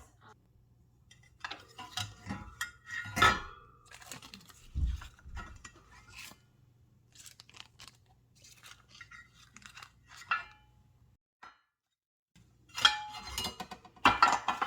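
Baking pans and kitchen utensils being handled: scattered clinks, knocks and scrapes, with a brief lull about eleven seconds in before the clatter picks up again.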